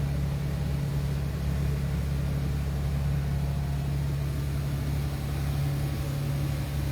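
Boat engine running steadily, a loud, even low drone with no change in speed.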